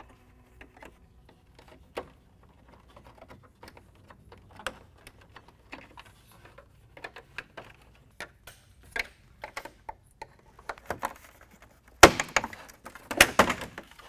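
Plastic clips of a Ford Ranger's factory grille being pried loose, giving scattered sharp clicks and small knocks. Near the end come a run of much louder snaps and knocks as the grille pops free and is pulled off.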